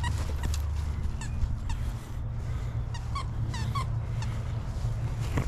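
Dog's squeaky plush popcorn toy squeaking in short, irregular squeaks as the dog plays with it, over a steady low rumble.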